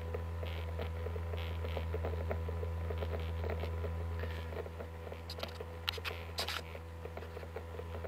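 A fake 'ultrasonic' USB washing machine running in a tub of water: its small motor with an eccentric weight, a plain mechanical vibrator, gives a steady low hum with faint ticking over it, and a few sharper clicks about two-thirds of the way in.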